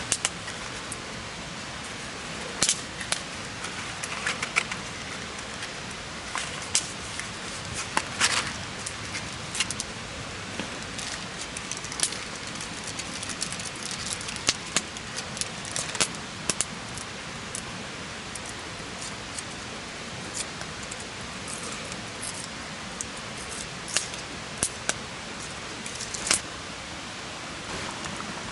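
Wood campfire crackling: sharp, irregular pops and snaps over a steady hiss.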